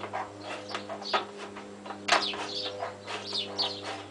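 Hand tin snips cutting sheet metal, a run of short, crisp snips about two to three a second, the loudest about two seconds in, over a steady low hum.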